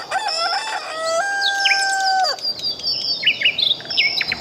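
A rooster crowing once, a long held call that breaks off a little over two seconds in. It is followed by a quick run of short high chirps, all over a steady high-pitched buzz.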